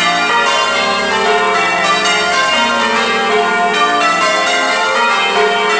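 Church bells rung in changes (English change ringing): a continuous, even stream of bell strikes, each note ringing on under the next.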